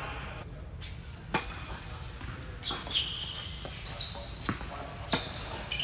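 Tennis rally on an indoor hard court: a string of sharp knocks as the ball is struck by rackets and bounces, with short high squeaks of shoes on the court between them.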